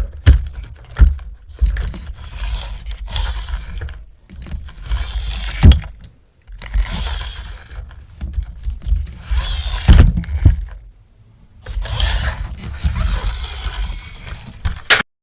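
Toy parts and packaging being handled: irregular scraping and rustling broken by sharp clicks and knocks, cutting off suddenly near the end.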